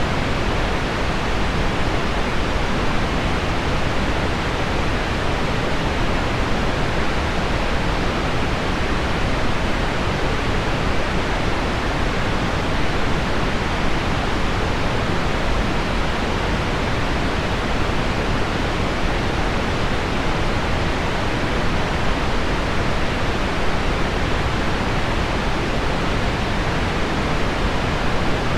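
Steady rain-and-pink-noise mix: heavy rain on window glass blended with deep pink noise, heard as an even, unbroken rushing hiss. No single drops or taps stand out, and the level does not rise or fall.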